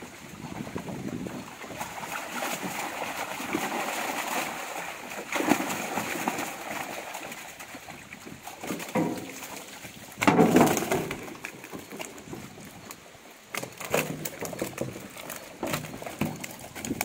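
Water splashing and sloshing as a mesh keepnet full of carp is hauled out of the water, with irregular splashes. The loudest splash comes about ten seconds in.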